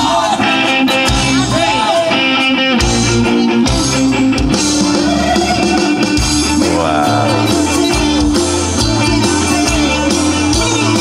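A song with a singer and backing band playing through a car's aftermarket audio system: an Android head unit with a DSP processor, a subwoofer and the stock speakers, heard in the cabin.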